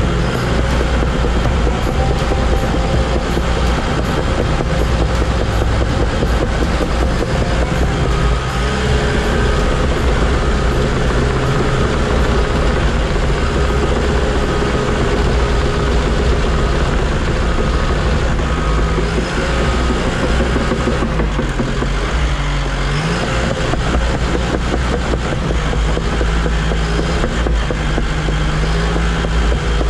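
Small crawler dozer's diesel engine working under load while grading dirt, heard from inside the cab, with the steady rumble of the engine and the clatter of the machine moving. The engine note dips and recovers about 22 seconds in as the blade takes a heavier bite.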